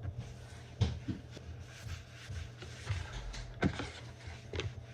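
Kitchenware being handled: a few separate clunks and knocks, about four, over a low steady hum.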